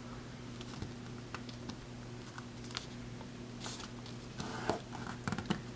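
A sheet of planner paper being folded and creased by hand: faint rustling with small taps and clicks, and a louder rustle near the end, over a faint steady hum.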